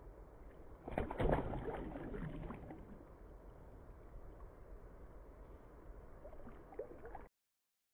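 Water splashing and knocking around a canoe on a creek. A louder burst of splashes and knocks about a second in fades over the next couple of seconds into steady low water and wind noise, and the sound cuts off suddenly near the end.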